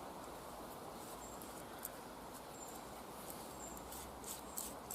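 Quiet woodland background: a steady hiss with faint, scattered high clicks and a few very short, high chirps.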